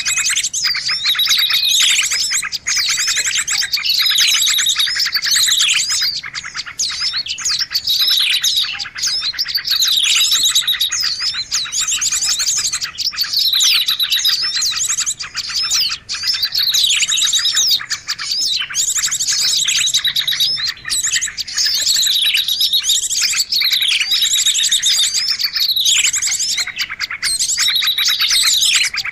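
Small-bird lure call track: dense, continuous high chirping and trilling from small songbirds, with a falling call recurring about every two seconds.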